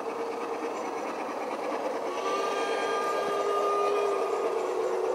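G-scale model Shay locomotive running with a string of coal cars. It makes a steady whine that steps down slightly in pitch about two seconds in, where a higher tone joins it, and it grows louder as the train comes nearer.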